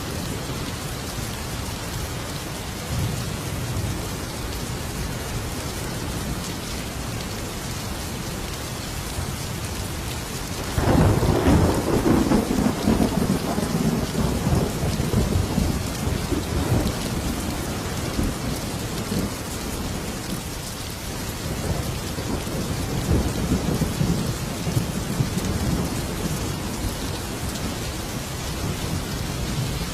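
Thunderstorm: steady heavy rain, with a loud thunderclap about a third of the way in that rumbles and fades over several seconds, and softer rolls of thunder later.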